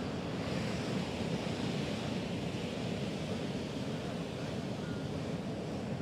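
Atlantic surf washing onto a sandy beach: a steady rush of waves, with wind on the microphone.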